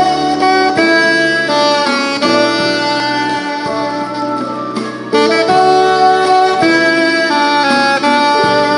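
Saxophone playing a melody of long held notes in two phrases, with a short break about five seconds in, over an accompaniment with a steady low bass.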